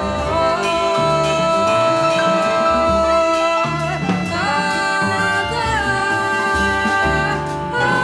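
Live jazz-pop band: a woman singing and a trumpet holding long notes over double bass and piano. The held notes change to a new chord about halfway through.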